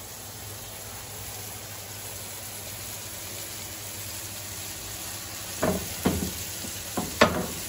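Ground-beef burger patties sizzling in hot oil in a frying pan, a steady frying sizzle that grows slightly louder as more patties go in. A few short, sharp, louder sounds break in near the end.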